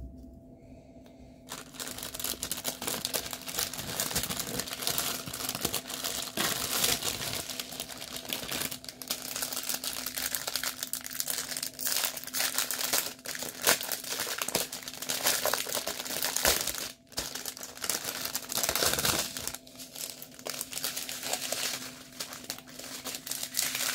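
Clear plastic packaging crinkling and rustling as it is handled and opened, starting about a second and a half in and going on in irregular bursts.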